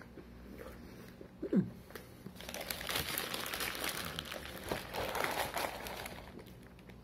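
Paper sandwich wrapper crinkling and rustling as it is handled, starting a little over two seconds in and lasting about four seconds. It comes after a brief low sound about one and a half seconds in.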